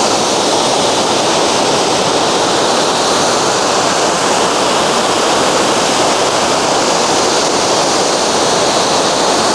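Waterfall pouring: a loud, steady rush of falling water with no breaks.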